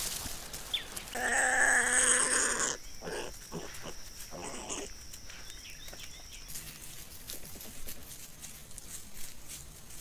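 A harsh, rasping animal call held for about a second and a half, about a second in. It is followed by soft rustles and clicks of an animal moving through leaf litter.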